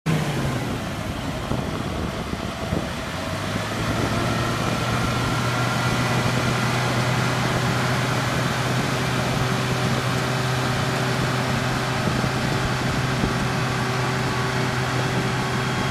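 Toyota Land Cruiser 200 being winched out of a river: its engine drones steadily, with a thin steady whine above it, and the pitch does not change.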